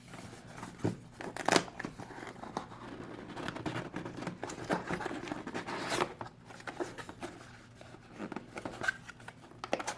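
Cardboard packaging being opened and handled by hand: scattered rustling, scraping and light knocks of cardboard flaps and inner boxes.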